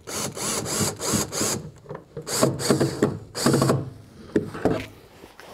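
Cordless drill-driver run in short bursts of the trigger, driving screws into cabinet hardware, with a ratcheting mechanical buzz. There are several quick pulses at first, then three longer runs in the middle.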